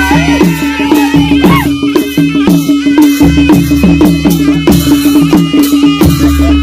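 Nepali panche baja ensemble playing dance music: drums beat a fast, even rhythm with bright cymbal clashes over a held steady tone. A high wind melody glides downward in about the first second and a half.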